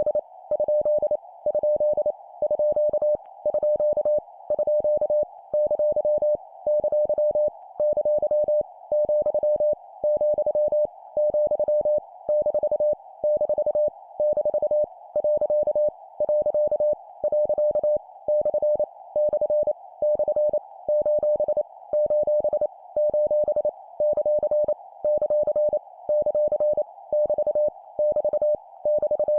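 Morse code (CW) practice tone of about 600 Hz keyed at 25 words per minute: quick dots and dashes sent in short groups with regular pauses, each punctuation character repeated three times. The tone sits over a steady narrow band of hiss, like a receiver's CW filter.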